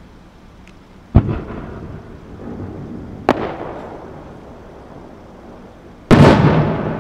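Three aerial firework shell bangs: one about a second in, one about three seconds in, and a bigger one near the end, each followed by a long rumbling tail.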